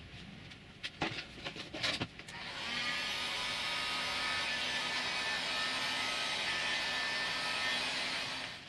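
A few scrapes of hands rubbing vinyl film down on a worktop, then a corded heat gun on its low setting switched on about two and a half seconds in, blowing with a steady hiss and a faint whine until it cuts off near the end.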